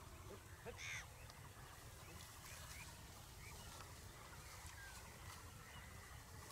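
Faint bird calls: one louder call about a second in, then scattered short chirps, over a low steady rumble.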